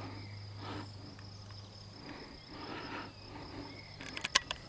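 Crickets trilling steadily in the background, with a low hum that stops about two seconds in. Near the end, a quick cluster of sharp clicks from handling the air rifle.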